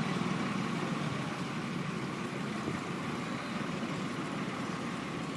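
Heavy diesel engine of road construction machinery running steadily, a constant low drone with no distinct strokes or changes.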